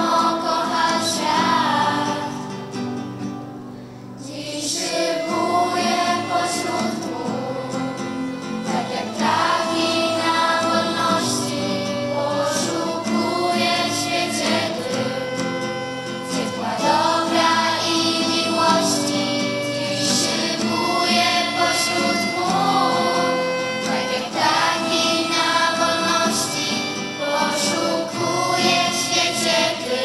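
Girls' choir singing a song together with violin accompaniment, with a brief lull between phrases about four seconds in.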